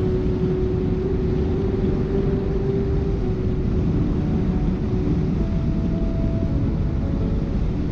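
Steady engine and road noise of a vehicle driving along a paved highway at speed, with a steady low drone and a faint hum.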